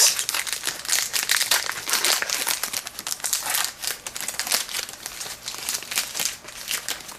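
Hockey trading-card pack wrapper being torn open and crinkled by hand: a dense, irregular run of sharp crinkles.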